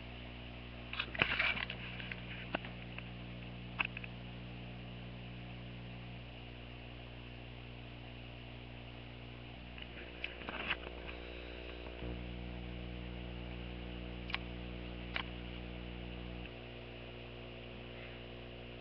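Steady electrical hum in the room, stepping slightly louder and quieter a few times. Short clicks and rustles break in about a second in and again around ten seconds in, with single clicks here and there.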